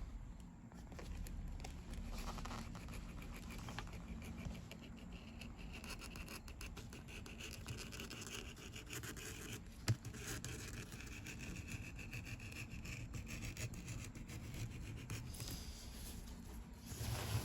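Leather strap edges being sanded by hand: a faint, continuous rapid scratchy rubbing, with a single sharp tap about ten seconds in.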